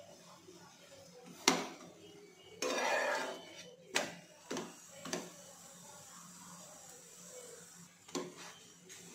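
Metal spatula clinking and scraping against a nonstick tawa as a methi paratha is lifted and flipped. A sharp clink about a second and a half in is the loudest sound, followed by about a second of scraping, then a few lighter taps as the paratha is turned and settled.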